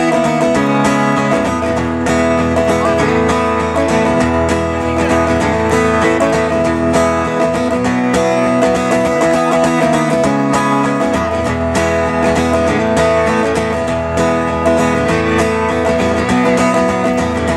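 Amplified acoustic guitar strummed in a steady rhythm during an instrumental break of a live song, the chords changing every second or two.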